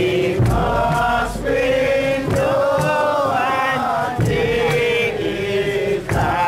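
A group of Bobo Shanti Rastafari marchers chanting together in long held, slowly bending notes, with low thumps beneath the voices.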